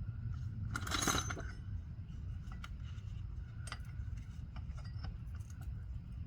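Scattered metallic clinks and taps of tools and parts, with a louder rattling clatter about a second in, over a steady low hum.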